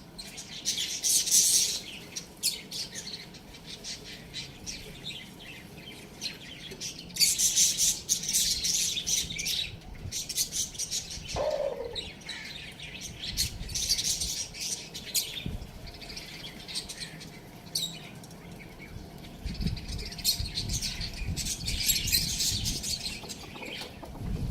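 A flock of small birds chirping and chattering, rapid high-pitched chirps coming in clusters every few seconds, with one short falling lower call about eleven seconds in.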